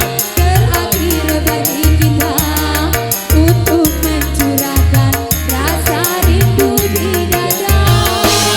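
Dangdut music from an orgen tunggal keyboard band: a steady beat of tabla-like drums and a heavy repeating bass figure, with a bending melody line on top, in a passage without words.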